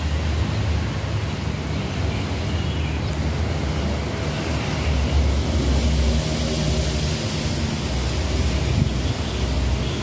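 Distant CC 203 diesel-electric locomotive (a GE U20C) running as its train draws slowly into the station to a stop. Its low engine drone rises a little in the middle, over a steady rushing noise.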